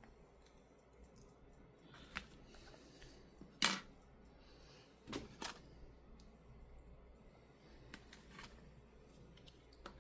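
Scattered light clicks and taps of small tools handling a tablet, the sharpest about a third of the way in and a quick pair just past halfway.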